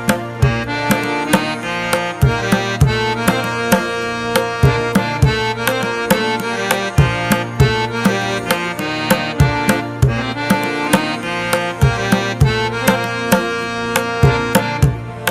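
Background instrumental music: a steady rhythm of hand-drum strokes under sustained melodic notes.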